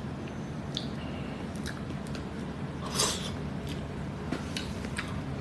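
Steady low room hum with scattered faint clicks and a short rustling hiss about three seconds in.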